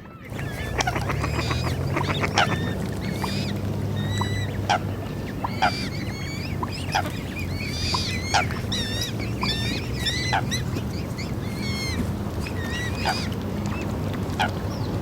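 Waterfowl calling: a stream of short honks and chirping calls, a few each second, over a steady low rumble.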